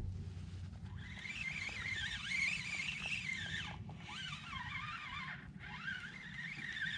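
Spinning reel being cranked in, its gears giving a high whine that wavers and swoops up and down with the turns of the handle, with a short pause just past halfway.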